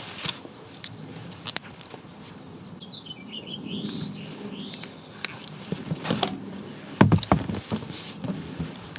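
Scattered light clicks and knocks, the loudest about seven seconds in, with a brief bird twittering about three seconds in.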